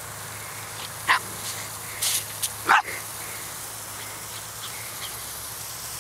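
Small dog barking twice, sharp and short, about a second and a half apart, over the steady hiss of sports-field sprinklers.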